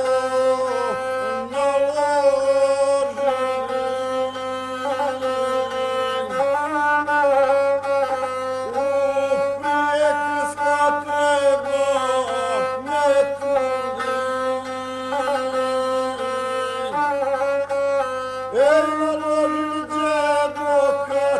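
Gusle, the one-stringed bowed folk fiddle, bowed in a steady melody of held notes with short slides between them.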